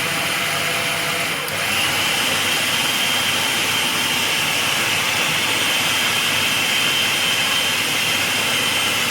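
Electric food chopper running steadily with a high motor whine, its blades mincing raw chicken with chili, onion and breadcrumbs. The whine steps up slightly about a second and a half in.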